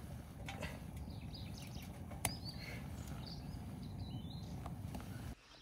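Faint small-bird chirps over a steady low outdoor rumble, with an occasional sharp click; the sound cuts off abruptly near the end.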